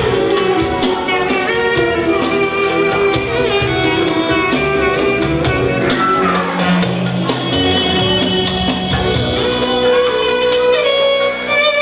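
Instrumental band music, with melody lines over a steady drum beat.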